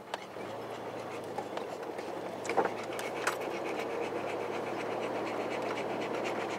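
A 4x4 creeping along a bumpy dirt track: a low steady engine hum under rough tyre and body noise, with a few sharp knocks or rattles, the clearest about two and a half and three and a half seconds in.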